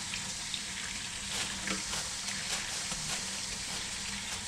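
A vegetable peeler scraping the skin off a cucumber in a few short strokes, over a steady hiss.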